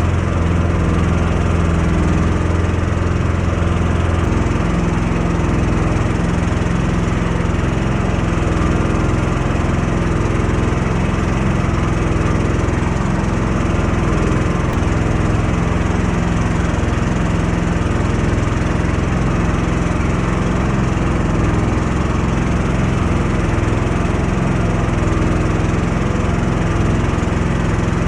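Small engine of a karakat, a homemade swamp buggy, running steadily while under way. Its lowest tone drops away about four seconds in.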